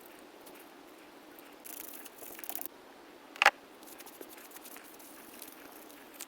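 Small hand tools working on a wristwatch: light taps and clicks, a brief scratchy hiss about two seconds in, and one sharp, ringing click about three and a half seconds in.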